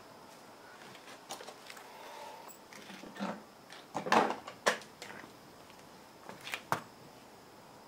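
Scattered knocks, clicks and scuffs of a person getting up from a crouch and moving about on the floor. The loudest, a short scrape and then a sharp knock, come a little past the middle, with a few lighter clicks later.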